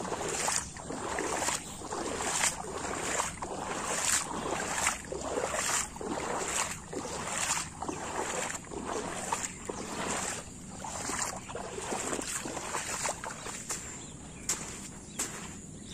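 Footsteps wading through shallow floodwater, each step a splash and slosh, at a steady walking pace of a little over one step a second.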